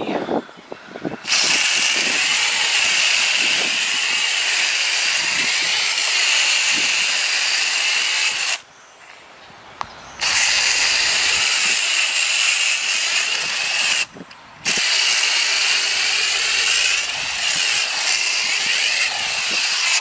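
Foaming coil cleaner sprayed from a hand-held spray wand onto a heat pump's outdoor condenser coil: a loud, steady hiss that starts about a second in and breaks off twice, for a second or two past the middle and briefly a few seconds later.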